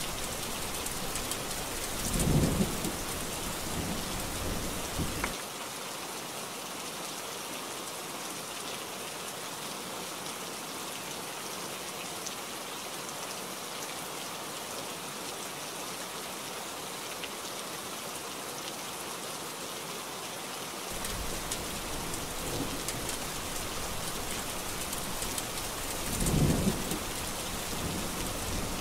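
Steady heavy rain throughout, with thunder rumbling twice: a rumble swelling about two seconds in and dying away a few seconds later, then another building in the last third and peaking near the end.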